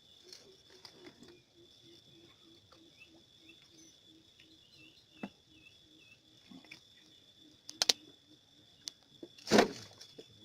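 Insects trilling steadily at a high pitch, under a faint low pulsing call about four times a second. Scattered clicks, and one loud thump near the end.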